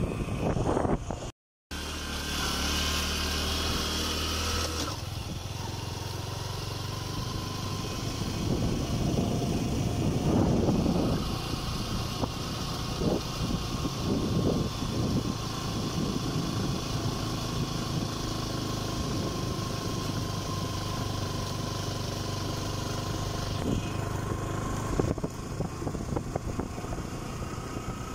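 Motorcycle engine running steadily while riding, with a brief total break in the sound about a second and a half in.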